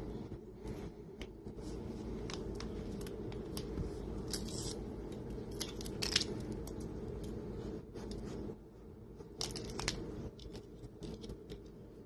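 Bengal kitten biting and chewing a plastic drinking straw: irregular crunching clicks and crackles, a few sharper ones mid-way, over a steady low hum.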